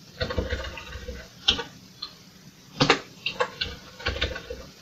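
Computer keyboard keys being pressed one at a time while a line of BASIC is edited: about ten uneven clicks, the loudest about three seconds in.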